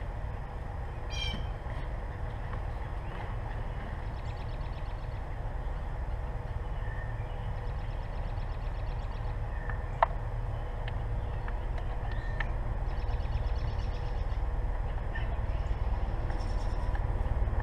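Birds calling in the background, several short trills repeated every few seconds, over a steady low rumble, with one sharp click about ten seconds in.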